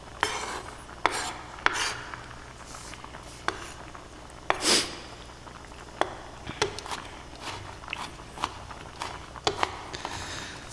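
Chef's knife mincing garlic on a wooden cutting board: irregular sharp knife taps on the wood, with a few longer scraping sounds of the blade across the board, the longest about halfway through.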